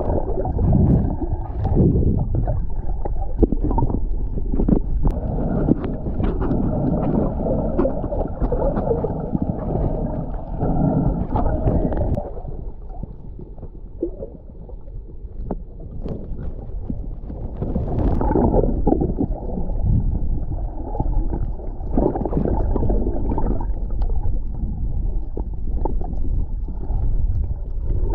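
Muffled underwater rumble and gurgling of seawater moving around a submerged camera, with scattered faint clicks. It drops quieter for a few seconds near the middle, then comes back up.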